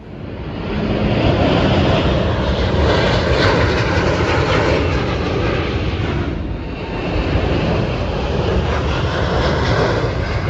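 Jet airliner's engines, loud and steady, as it climbs out after takeoff. The sound dips briefly about six seconds in and then swells again.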